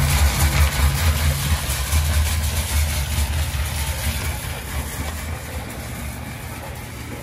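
A machine running with a low, steady hum that slowly grows quieter.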